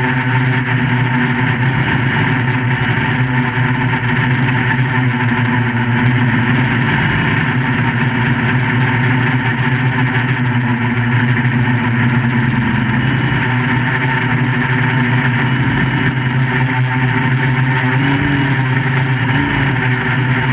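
QAV400 quadcopter's electric motors and propellers running in flight, a steady drone made of several pitch lines that wavers slightly in pitch near the end.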